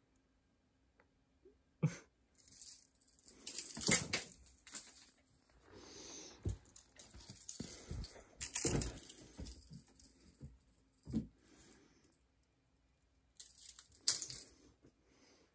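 A cat scrambling and pouncing on a wooden floor while chasing a string toy: irregular thumps and skittering paw scrabbles with light rattling, in bursts that stop briefly before a last flurry near the end.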